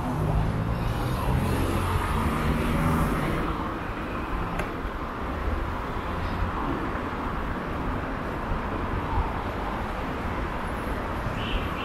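Street traffic: a motor vehicle's engine hum is heard for the first three seconds or so and then fades, leaving a steady rush of road noise.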